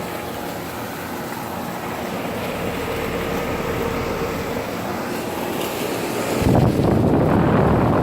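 Frigidaire window air conditioner running in cooling mode, its condenser fan blowing hot air out the back in a steady whoosh with a faint hum. About six and a half seconds in, a louder rush of air hits the microphone.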